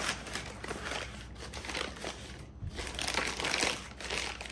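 Paper bag of powdered setting-type joint compound crinkling and rustling as it is handled and worked open, in repeated bursts with a brief lull about two and a half seconds in.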